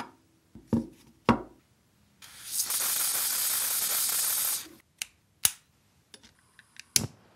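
A rusted metal ashtray is knocked down twice on a tabletop. An aerosol can then hisses steadily for about two seconds, spraying lubricant through a straw onto a rusted nut. Light metallic clicks and ticks follow as an adjustable wrench is fitted to the nut, ending in a sharper knock.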